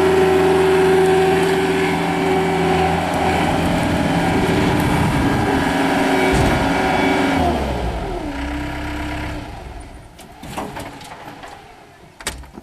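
Bobcat skid steer loader's diesel engine running steadily at working throttle, powering the sweeper broom. About seven and a half seconds in its pitch slides down as it winds down and stops. A few sharp clicks and a knock follow near the end.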